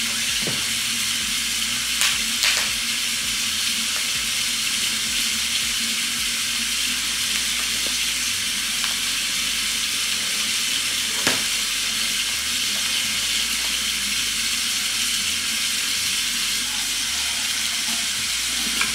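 Kitchen faucet running in a steady stream into a stainless steel sink as raw steak is rinsed under it, with a few light knocks about two and eleven seconds in.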